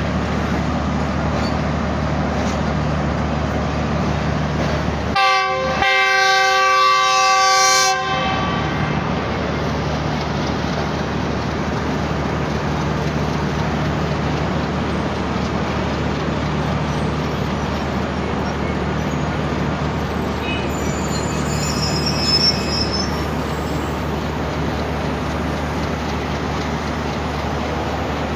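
Pakistan Railways PHA-20 diesel locomotive running with a steady low engine drone; about five seconds in, a multi-tone locomotive horn gives a brief toot and then a blast held for about two seconds.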